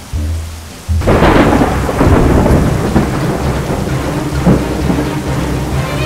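Rain falling steadily, with a sudden thunderclap about a second in that rolls on as a long rumble.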